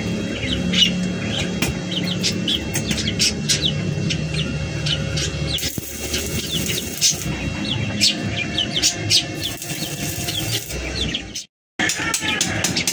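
Stick-welding arc crackling and sizzling in two spells, about six and nine seconds in, from a small inverter welder. Background music and chirping run underneath, and the sound cuts out for a moment near the end.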